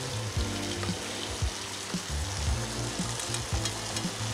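Chicken pieces frying in a pan with a steady sizzle, with a spoon scraping and clicking against a small metal sieve as sauce is pushed through it.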